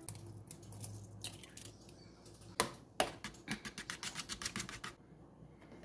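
Two sharp knocks, then a metal fork beating an egg in a plastic container: rapid clicking, about eight taps a second, that stops near the end.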